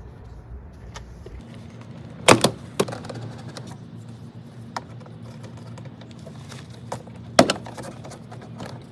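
Plastic retaining clips of a 2007 Nissan 350Z door panel popping loose as the panel is pried off the door: a handful of sharp snaps, the loudest about two and a half seconds in and again about seven and a half seconds in.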